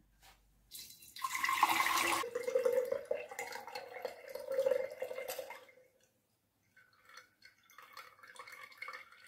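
Rice water being poured through a strainer into a tall glass jar. The splashing pour starts about a second in, is strongest at first, and tapers off after a few seconds, with a steady ring from the jar. Fainter trickling follows near the end.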